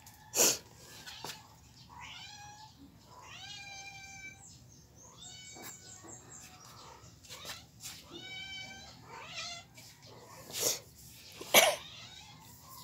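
A cat meowing repeatedly in a series of drawn-out, high-pitched calls. A few sharp clicks or knocks come through as well, the loudest near the end.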